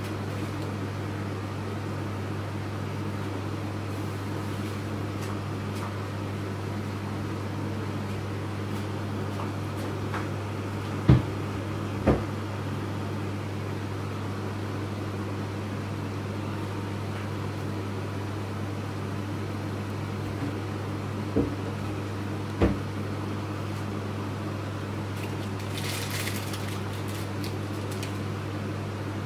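Steady low hum of a running kitchen appliance or fan, with four sharp knocks as food and utensils are set down on a ceramic plate during burger assembly, two around the middle and two later, and a brief rustle near the end.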